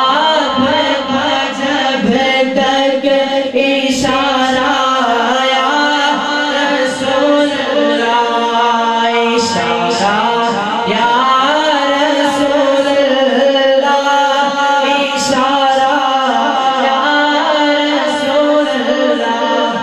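A man singing a naat, an Urdu devotional song in praise of the Prophet, unaccompanied into a microphone, with long held and ornamented notes.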